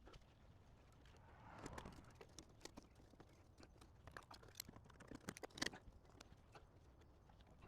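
Faint scattered clicks, knocks and scrapes of nails being worked out of wooden soffit trim, a cluster of sharper clicks a little past halfway.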